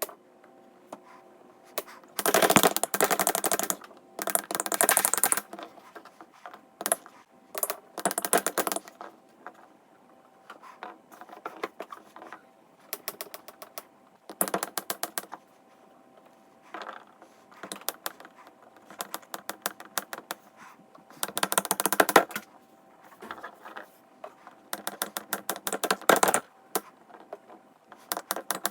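Plastic fidget toys being clicked rapidly, in quick runs of sharp clicks broken by pauses and single clicks.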